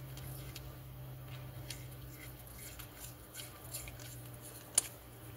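Faint metallic clicks and scrapes of hands handling a Tillotson HL carburetor body while the new inlet needle seat is put in and tightened, with one sharper click about five seconds in. A steady low hum sits underneath.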